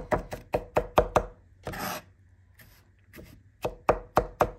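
Chef's knife chopping minced garlic on a wooden cutting board: quick, even knocks about four or five a second. Partway through the chopping stops for a short scrape and a quiet pause, then starts again.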